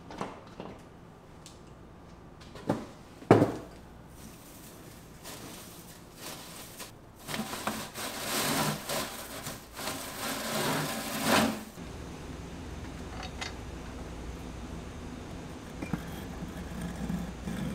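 Curly aluminium lathe swarf poured out of a metal can onto a wooden bench: a noisy rush of light metal shavings lasting about four seconds, with two sharp knocks on the can a few seconds before. A steady low hum follows.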